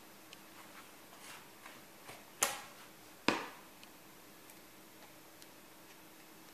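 Two sharp knocks about a second apart, with a few faint ticks around them: a metal spoon and a plastic tub of cornmeal bait dough being handled while mixing.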